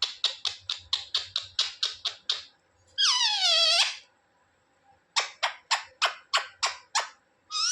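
Indian ringneck parrot calling: a fast run of short, sharp, high calls, about four or five a second, then one drawn-out wavering screech about three seconds in, then another run of sharp calls.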